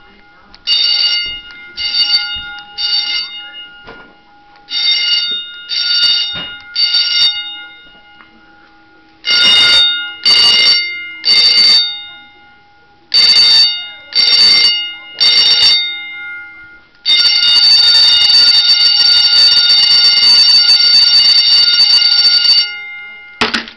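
10-inch electric school bell switched on and off by remote, ringing in short bursts of about half a second in groups of three, the gong ringing on briefly after each burst. About two-thirds of the way through it rings without a break for about five seconds, then gives one last short ring at the very end.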